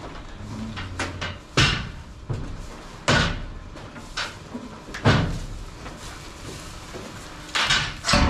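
A series of loud bangs and knocks: the sharpest about one and a half, three and five seconds in, with smaller knocks between and a cluster of bangs near the end.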